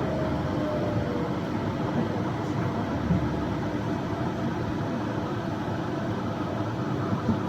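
Yurikamome Line rubber-tyred automated train running steadily, with a faint whine that slides down slightly at the start over a steady hum.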